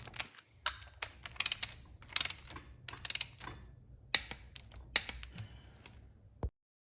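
Ratchet torque wrench clicking in quick runs, with several sharp single clicks, as the cylinder head stud nuts are tightened to the first (30) stage of a 30-60-90 torque sequence. The sound cuts off suddenly near the end.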